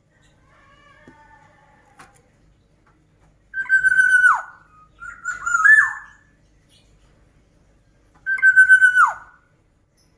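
Black-naped oriole (kepodang) calling. Twice it gives a held whistle that drops sharply in pitch at the end, and between them comes a shorter wavering phrase. A few faint notes sound in the first two seconds.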